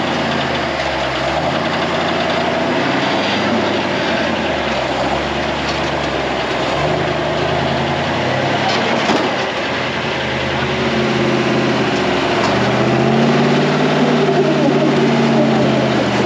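Rock-crawling buggy's engine working under load as it climbs a sandstone ledge, its pitch rising and falling with the throttle and held higher in the last few seconds. A single short knock about nine seconds in.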